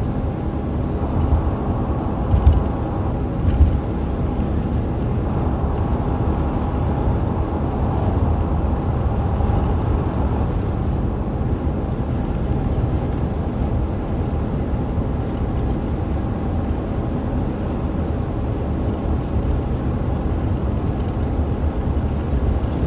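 Steady engine and road noise of a van driving at speed, heard from inside the cabin, with two brief thumps a few seconds in.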